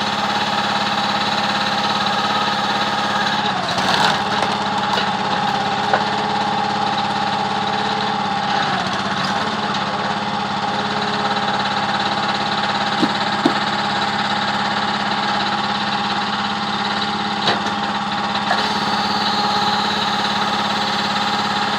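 An engine running steadily at one constant speed, with a few short sharp clicks or knocks now and then.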